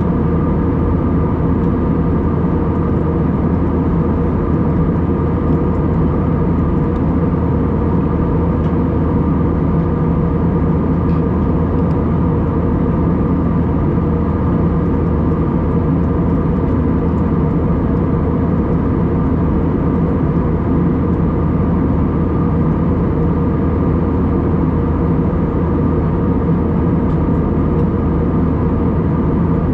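Steady cabin drone of an Airbus A320-232 in flight: its IAE V2500 engines and the airflow over the fuselage, a loud even roar with several steady hum tones running through it and no change in pitch or level.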